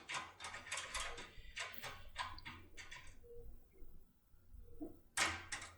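Metallic clicking of a locksmith's pick tool being jerked back and forth in a Pollux Inoui cylinder lock: a quick run of clicks for about three seconds, a pause, then two sharper clicks near the end.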